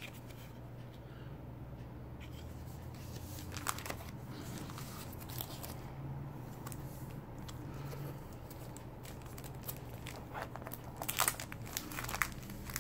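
Paper and a clear cellophane sleeve being handled: quiet rustles with a few light clicks, then crinkling of the plastic sleeve in the last two seconds, over a steady low hum.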